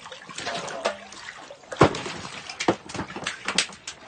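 Water splashing in an ice-fishing hole as a hand reaches in to grab a whitefish, a string of sharp splashes and knocks with the loudest about two seconds in.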